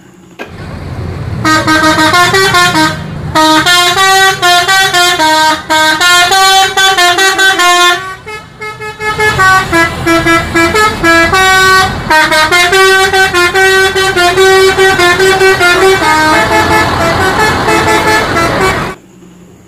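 Multi-tone musical horn on a tour bus, the Indonesian 'telolet' horn, playing a loud stepping tune of several notes. It breaks off briefly twice, about three seconds in and around eight seconds in, then stops abruptly near the end.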